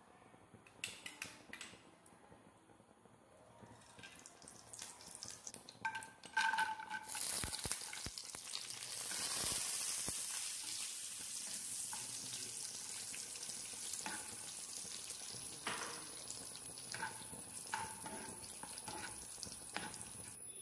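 Cashew nuts frying in hot ghee in a nonstick pan: a steady sizzle sets in about seven seconds in. The spatula knocks and scrapes against the pan now and then as the nuts are stirred. Before the sizzle there are only a few light clicks and knocks.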